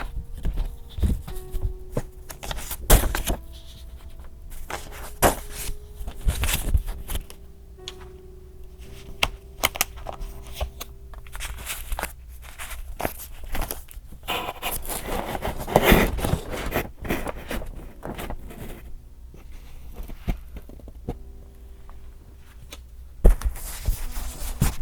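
Paper and stationery being handled for journal decorating: irregular taps, clicks and light knocks, with a longer stretch of scratchy paper rustling about halfway through. Faint held notes sound under it now and then.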